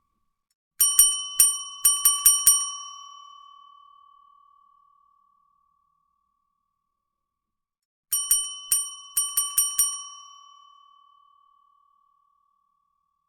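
Service bell struck rapidly in two quick flurries of about seven dings each, the first starting about a second in and the second about eight seconds in. Each flurry rings on and fades out over a few seconds.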